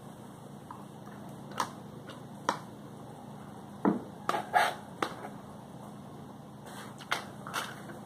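Pliers and the wiring of an electric fan motor being handled: a series of short, sharp clicks, snips and rustles, with a heavier knock and a quick cluster of clicks near the middle, over a faint steady low hum.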